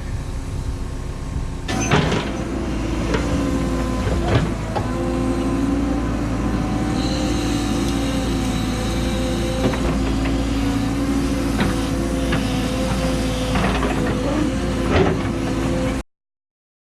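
A Cat 314E excavator's diesel engine and hydraulics running steadily under load, with a hum whose pitch shifts a little. About half a dozen sharp clunks come from the bucket and boom working mud. The sound cuts off suddenly near the end.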